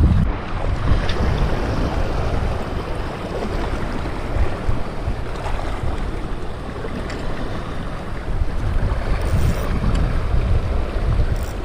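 Strong wind buffeting the microphone in uneven gusts, over small sea waves washing and lapping against shore rocks.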